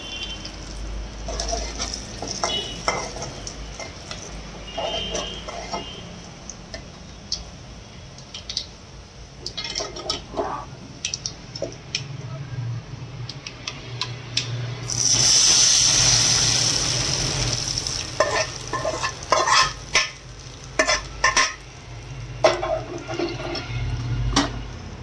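Hot oil sizzling in an aluminium pan with garlic, mustard seeds and dried red chillies for a pickle tempering, with a spoon clicking and scraping against the metal. About halfway through comes a loud burst of sizzling lasting about three seconds, as the hot tempering meets the tamarind pickle paste.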